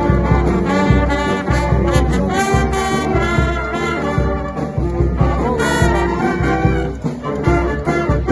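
Street brass band playing live: trumpets and trombones over a steady low beat.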